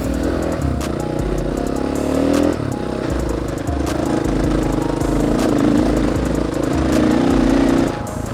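Dirt bike engine running under way, its revs climbing and then dropping back about two and a half seconds in and again near the end, with frequent rattles and clicks.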